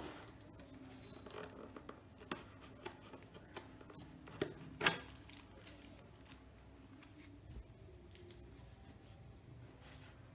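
Packing tape on a cardboard box being cut open: quiet, scattered snips and scrapes, the loudest few about four to five seconds in.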